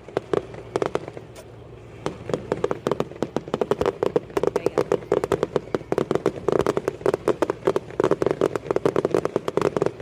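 Fireworks going off in a rapid, continuous run of sharp pops and bangs, many a second, with a short lull about two seconds in.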